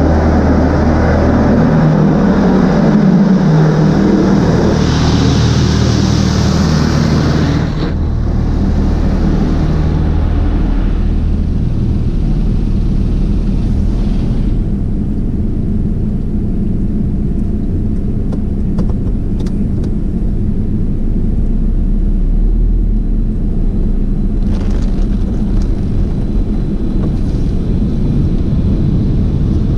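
Automatic drive-through car wash machinery running: a steady loud noise with a low hum. A stronger hiss from about five to eight seconds in eases off, then briefly returns near the end.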